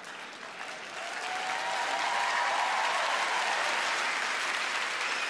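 Large theatre audience applauding, swelling about a second and a half in and holding steady.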